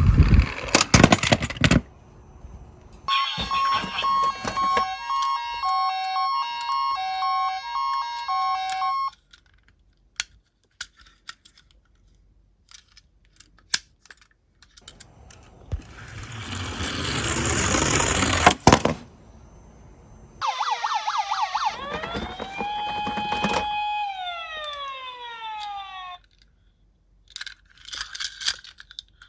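Toy ambulance minicar's electronic siren: a two-tone high–low siren alternating steadily for several seconds, and later a siren tone that slides down, holds, then falls away. In between, a toy car rolls down a slope with a rattling noise that swells and then cuts off sharply.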